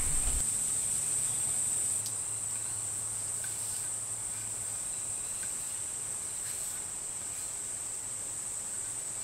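Steady high-pitched insect chirring in the background, with a faint low hum that fades out about two seconds in and a few faint light ticks.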